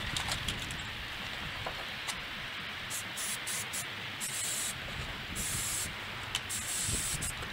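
Aerosol can of Waxoyl cavity wax spraying in several short hissing bursts from about three seconds in, laying anti-corrosion wax inside the car's body seam, over a steady background hiss.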